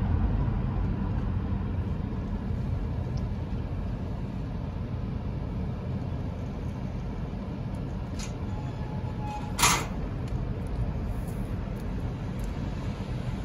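Low rumble of a car heard from inside the cabin as it drives slowly, easing off as the car slows. There is one sharp click about ten seconds in.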